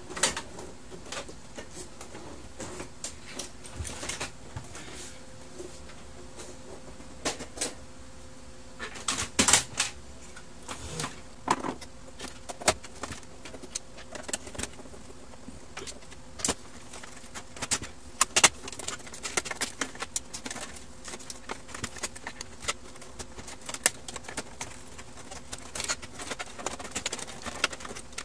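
Plastic casing parts of a laser printer clicking, knocking and rattling as they are handled and fitted by hand: irregular clicks and taps, thickest and loudest about nine to ten seconds in and again around eighteen seconds.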